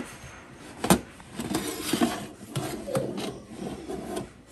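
A metal baking tray is drawn out of an oven by a mitt-gloved hand. There is a sharp knock about a second in, then the tray scrapes and rubs along the oven's rack rails, with short squeaks.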